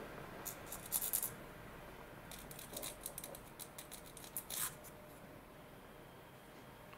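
Light scraping and clicking of small hand work at a modelling bench: a short cluster of sharp clicks about a second in, then a longer run of scrapes and ticks that stops shortly before the end.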